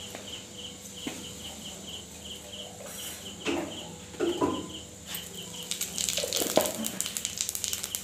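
Fenugreek seeds frying in hot oil in a kadhai: a faint sizzle that grows into dense crackling about five and a half seconds in. Under it runs a steady rhythmic chirping, and a couple of short calls come in the middle.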